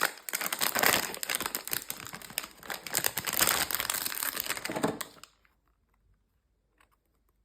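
Toy packaging being crinkled and handled, a dense run of crackling rustle that stops about five seconds in, leaving only a few faint clicks.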